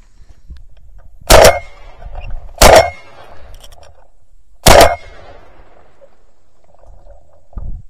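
Three shotgun shots fired at flying doves. The first two come about a second apart and the third about two seconds later, each very loud with a short echo trailing off.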